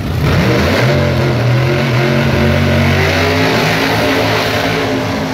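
Drag race cars launching off the start line at full throttle. The engine note climbs steeply in the first second, then holds loud and steady as they run down the strip.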